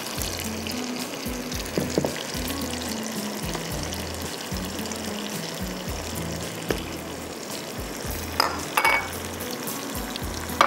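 Tomato-and-oil masala with ginger-garlic paste frying with a steady sizzle in a karahi while it is stirred, with a few clinks and scrapes, loudest near the end. Background music plays under it.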